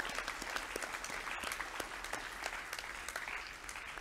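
Audience clapping in applause, a dense patter of many hands that tapers off near the end.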